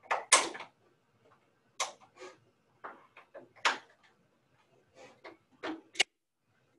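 Patient attachments being snapped onto the quick-connect points of a Harmony SHR upper-limb rehabilitation exoskeleton: a run of sharp clicks and clunks at irregular intervals, the loudest just after the start and a short sharp click near the end.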